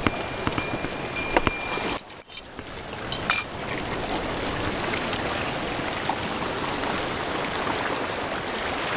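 A small bite bell on the fishing rod jingles in short, high rings for about the first two seconds. After that, waves wash steadily over the rocks of the shoreline.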